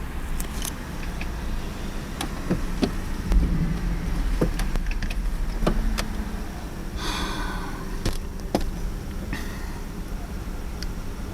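Inside the cabin of a 2001 Ford Mustang with the 3.8 L V6 running while the car is driven: a steady low engine and road rumble with scattered sharp clicks and knocks, and a short hissing rush about seven seconds in.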